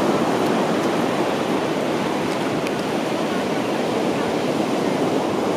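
Steady, unbroken rush of ocean surf washing onto a sandy beach.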